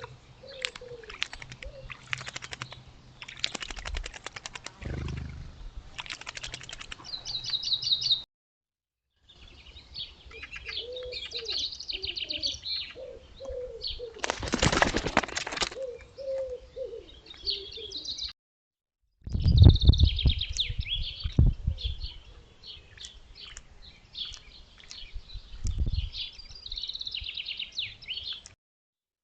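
Wild birds at a pond: small birds chirping high, a pigeon cooing low, and flurries of wing flaps. It comes in three short segments, each cutting off abruptly.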